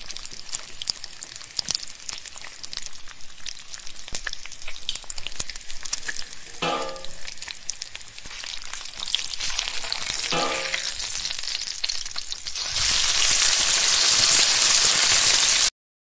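Oats-and-egg batter frying in an oiled nonstick pan, a crackling sizzle full of small pops. Near the end the sizzle jumps to a louder, even hiss for about three seconds, then cuts off suddenly.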